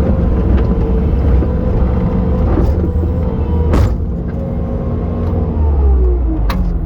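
Bobcat T870 skid steer's diesel engine running steadily with a low rumble and a steady whine. The whine sags in pitch near the end, and there are two sharp knocks, one about halfway through and one near the end.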